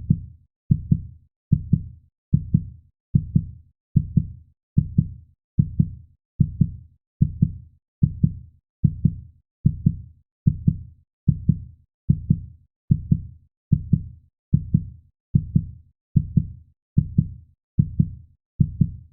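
Heartbeat sound effect: a steady run of low double thumps (lub-dub), a little over one beat a second.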